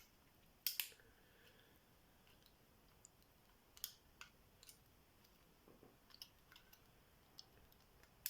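Scattered small clicks and taps of a pick and tension tool working the pins of a tubular lock, the loudest a quick double click near the start. Otherwise near silence.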